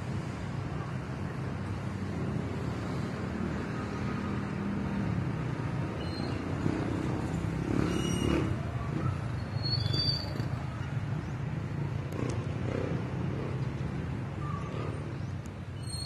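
Steady low mechanical hum over outdoor background noise, like an engine running, with a few short high-pitched sounds around the middle.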